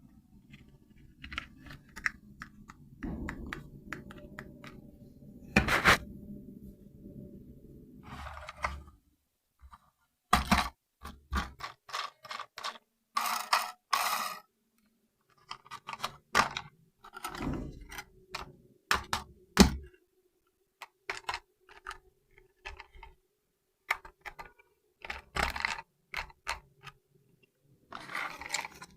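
Plastic toy car and its packaging being handled: scattered clicks, knocks and scrapes, some sharp and loud, with a low steady hum for the first eight seconds or so before it stops.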